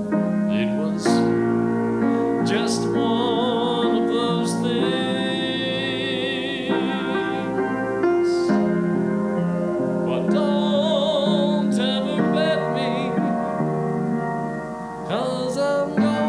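Music: a slow ballad on piano, with a melody line carrying strong vibrato over the chords.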